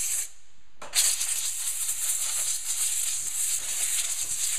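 Compressed air hissing from an air-compressor blow gun, blowing grass debris out of a lawn mower's air filter cover. One short blast ends just after the start, and a second, longer blast begins just under a second in.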